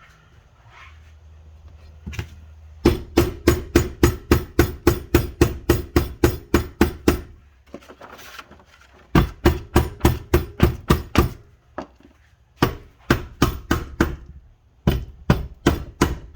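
Quick repeated hammer strikes on the Honda Civic transmission case, tapping a case half down that will not seat. About five blows a second come in four runs, the first and longest lasting about four seconds.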